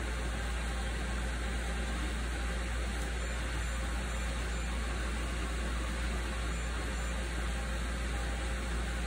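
Desktop FDM 3D printer running mid-print: a steady whir from its cooling fans over a low hum, with a few faint steady motor tones.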